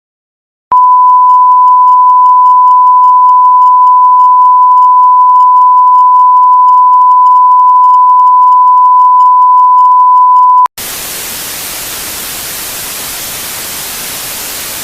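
Television station sign-off: a loud, steady, single-pitched test tone holds for about ten seconds, then cuts off suddenly into hissing static as the transmitter goes off the air.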